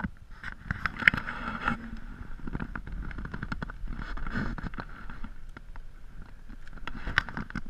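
BMW E90 320i four-cylinder petrol engine idling after a cold start at about −17 °C. Over it come many short knocks, scrapes and crunches as the car is left and someone walks round it through snow.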